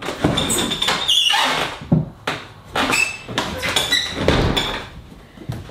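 A wooden door being opened and shut, with its knob and latch clicking, short squeaks and several thuds, along with footsteps and a cardboard box being handled.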